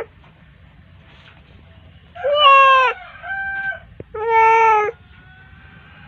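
Calico cat in labour meowing: three drawn-out cries about a second apart, the middle one shorter and fainter, as she strains to deliver her first kitten.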